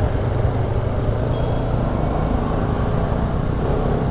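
Motorcycle engine running steadily at low speed, with street traffic around it.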